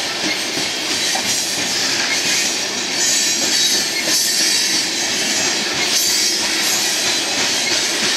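Loaded coal cars rolling past on steel wheels: a steady grinding rush of wheels on rail with high wheel squeal, swelling and fading every second or so as the cars and their trucks go by.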